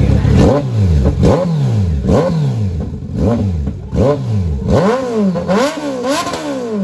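Kawasaki Z900 inline-four revved through an SC-Project aftermarket exhaust: a series of quick throttle blips, each rising sharply in pitch and falling back, about one a second and coming quicker near the end.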